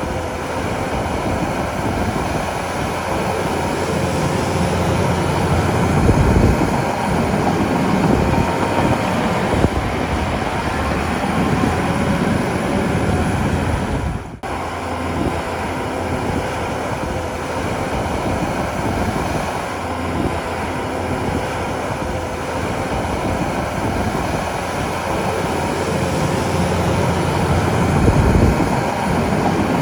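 Diesel engine of a Shantui crawler bulldozer running under load as it works, a steady heavy machinery noise with a deep rumble. The sound drops out suddenly for a moment about halfway through.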